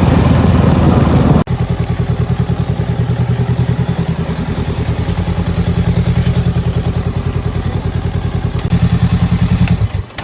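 Honda Rebel 500 parallel-twin engine idling with a fast, even pulse, then shut off and dying away near the end. Before that, a loud rushing noise cuts off abruptly about a second and a half in.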